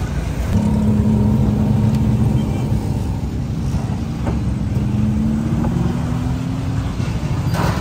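A motor running: a steady hum over a low rumble, setting in about half a second in and creeping slightly higher in pitch before it fades near the end.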